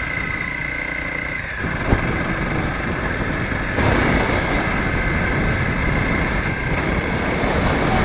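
Dirt bike engine running while riding a dirt track, heard from on the bike, with wind on the microphone. The sound changes abruptly about a second and a half in and gets louder just before four seconds in, with a sharp click in between.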